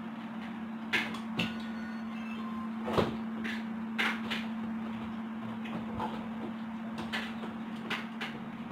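Large cardboard TV box being handled and worked open at the top: scattered knocks and scrapes, about half a dozen, over a steady low hum.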